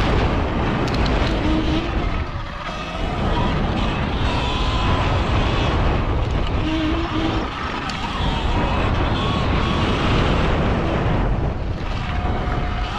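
Electric dirt bike ridden along a dirt singletrack: steady wind buffeting on the microphone and tyre rumble, with a faint motor whine that rises and falls with speed.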